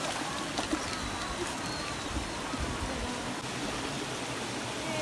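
A hooked fish splashing at the water's surface as it is brought to a landing net, a few faint splashes over a steady rushing hiss.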